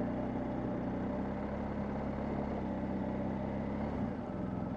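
BMW R1250GS Adventure's 1254 cc boxer-twin engine running at a steady cruise, over a haze of wind and road noise. The engine note changes about four seconds in.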